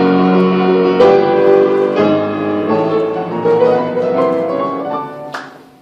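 Piano music: chords struck about once a second, each left to ring, the playing dying away near the end.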